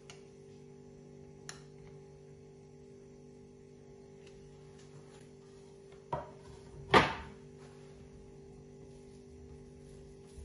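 Quiet background music, and two sharp knocks about a second apart past the middle, the second louder and ringing briefly: kitchenware set down on a countertop as a chilled dessert is taken out of its springform pan.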